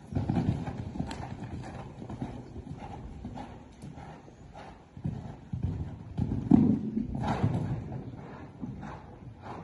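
A horse's hoofbeats cantering on sand footing: a run of dull thuds, with a heavier landing thud just after the start as the horse comes down from a jump.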